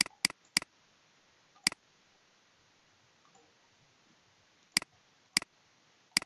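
Computer mouse clicks: seven short, sharp clicks, three in quick succession at the start, one more a second later, then three spread over the last second and a half.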